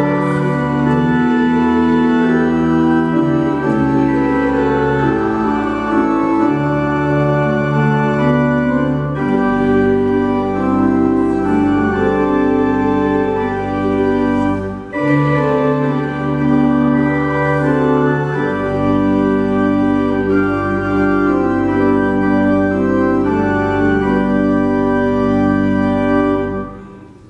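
Church organ playing slow, held chords over a deep bass. The music dips briefly about halfway through and dies away about a second before the end.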